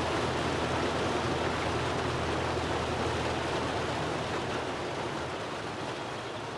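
Waterfall pouring into a river: a steady rush of falling and flowing water that slowly fades.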